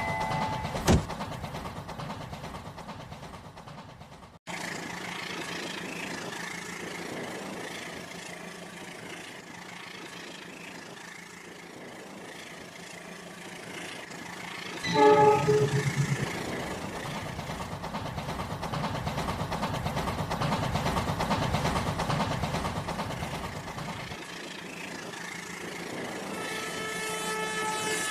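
Train running steadily, with a horn sounding briefly about halfway through and again near the end.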